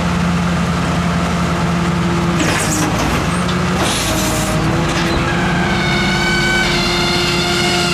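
Rear-loader garbage truck's engine running steadily with a low hum, with two short bursts of hiss about two and a half and four seconds in. A steady whine with several tones comes in from about five seconds on.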